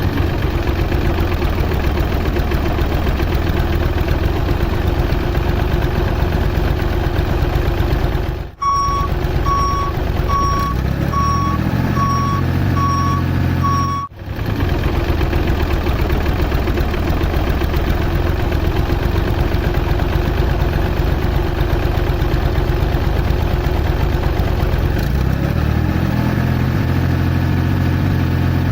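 Tractor engine running steadily. Partway through, a reversing alarm beeps about eight times in a steady rhythm, and the sound cuts briefly before and after the beeps.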